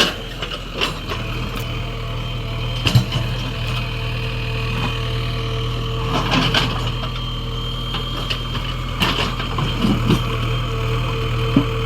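JCB 3DX backhoe loader's diesel engine running steadily, with occasional sharp clanks and knocks from the machine working.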